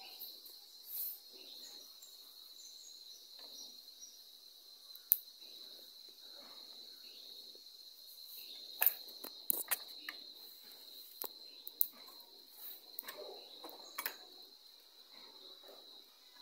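A steady high-pitched insect chirring, like crickets, under a scattering of sharp clicks and light taps from soldering work on a CRT TV circuit board.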